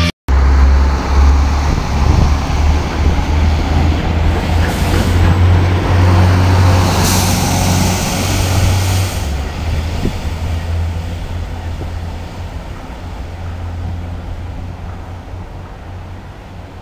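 Network Rail multi-purpose track vehicles DR 98003 and 98010 passing through at speed: a loud diesel engine rumble with wheel and rail noise. Brief hissing comes midway, and the sound fades steadily as the vehicles draw away over the second half.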